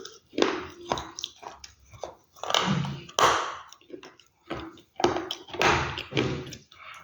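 Close-miked crunching of crunchy food being bitten and chewed: a string of irregular, loud crunches with short pauses between them.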